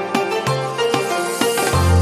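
Background music: a run of short, evenly spaced notes, joined near the end by a deep, sustained bass note.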